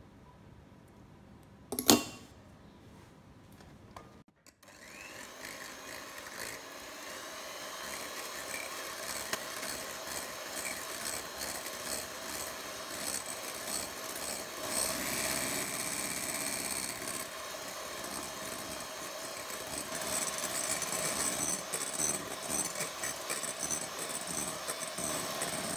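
A single sharp click about two seconds in as a beater is snapped into an electric hand mixer. Then the hand mixer runs, whirring steadily with the beaters rattling through egg whites in a glass bowl, whipping them into meringue. It gets louder in steps about midway and again later.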